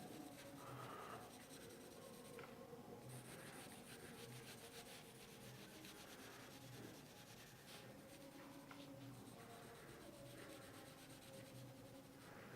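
Faint scratching of a pencil shading on paper, filling in the cross-section of a rivet in an engineering drawing.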